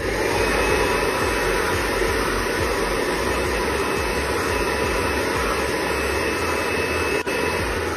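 Handheld hair dryer blowing steadily on its maximum heat setting: an even rush of air with a faint high whine. There is a brief click about seven seconds in.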